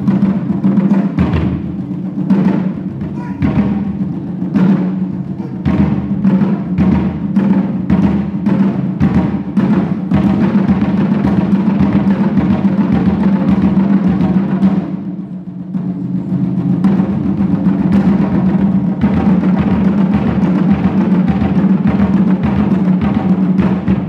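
Drum ensemble of three drummers playing rope-laced barrel drums and a large bass barrel drum: separate, spaced beats for the first several seconds, then fast, dense striking. About fifteen seconds in, the playing drops briefly, then picks up again.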